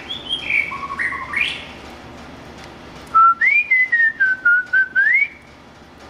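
White-rumped shama (murai batu) singing: a quick run of clear whistled notes in the first second and a half, then from about three seconds in a longer slurred whistle that rises, dips and rises again.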